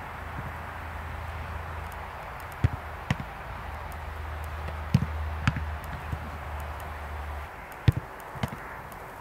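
Dull thumps of a football being struck and caught in goalkeeper drills, coming in three pairs about half a second apart, with a steady low hum underneath that stops near the end.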